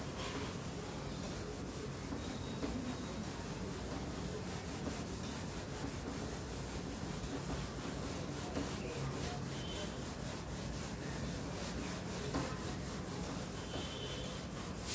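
A cloth rubbing over a whiteboard, wiping off marker writing with steady rubbing.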